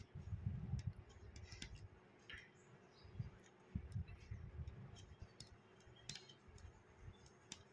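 Aari hook needle punching in and out of cloth while making chain stitches, giving faint, irregular clicks with soft low thuds of handling.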